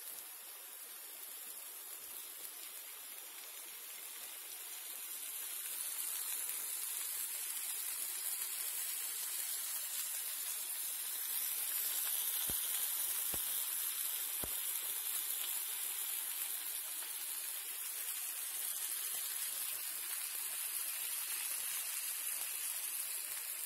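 Marinated fish steaks sizzling in oil on a cast-iron tawa: a steady frying hiss that grows louder about five seconds in and again near the middle.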